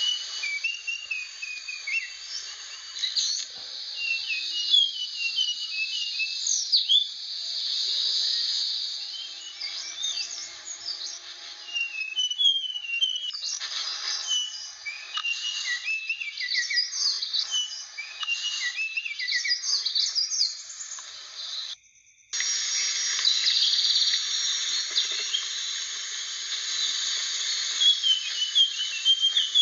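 Blue flycatcher (sikatan) singing: a run of quick, high whistled and chirping notes over a steady high hiss. The sound cuts out for about half a second roughly three quarters of the way through.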